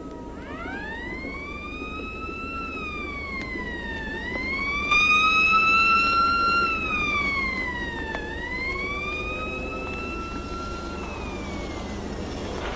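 A siren winding up and wailing, its pitch rising and falling in three slow swells about four seconds apart, loudest in the middle and fading near the end, over a steady low hum.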